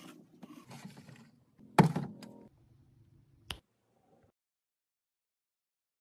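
Containers and items being handled and set down while restocking: a soft shuffle, then a loud thud with a short rattle about two seconds in and a sharp click a little later, before the sound stops.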